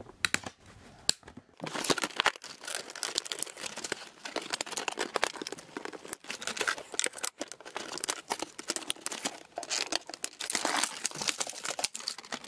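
Cardboard and plastic packaging crinkling and rustling as a model horse is unpacked from its box, with scattered clicks of pliers working the ties that hold it to the box backing. The first couple of seconds hold only a few clicks, then the crinkling runs almost without pause.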